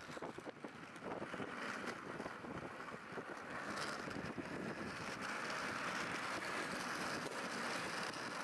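Inline skate wheels rolling on asphalt: a steady gritty roll with small clicks, with wind on the microphone.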